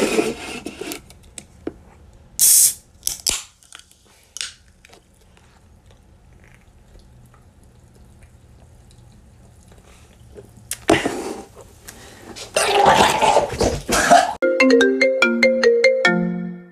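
A soda can hissing open, followed by a few clicks of the can being handled. About eleven seconds in comes a loud rough sound lasting about three seconds, and from about fourteen seconds a phone ringtone plays a melody of stepped electronic tones.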